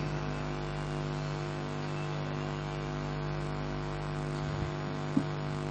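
Steady electrical mains hum from the microphone and sound system, with a brief faint noise about five seconds in.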